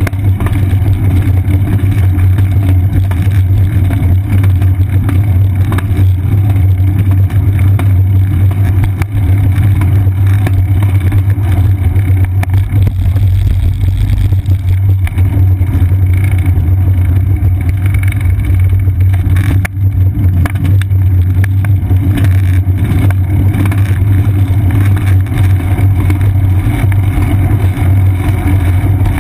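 Steady, loud low rumble of wind and road vibration picked up by a GoPro Hero 2 in its case on a moving bicycle's seat post.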